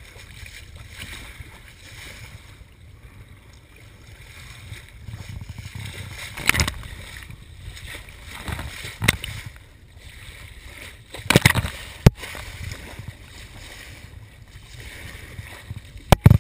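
Water rushing along the hull of a small sailboat under way, with wind on the microphone. Several loud splashes of spray burst against the hull and camera, and a few sharp clicks come near the end.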